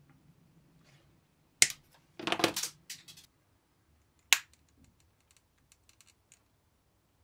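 A small metal watch case and hand tools being handled: a sharp click about a second and a half in, a short scraping rattle, a second sharp click about four seconds in, then a few light ticks.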